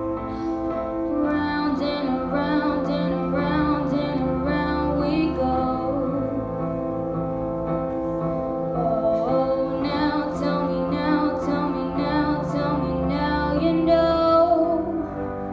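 A girl singing into a microphone over instrumental accompaniment.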